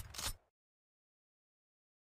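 Near silence: dead digital silence, after the tail of an intro sound effect that cuts off within the first half-second.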